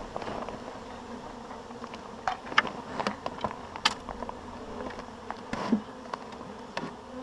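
A honeybee swarm humming steadily, with short louder buzzes now and then from single bees.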